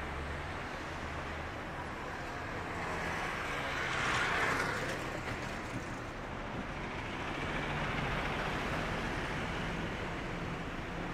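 City street ambience: a steady wash of traffic noise, with a vehicle passing and swelling louder about four seconds in.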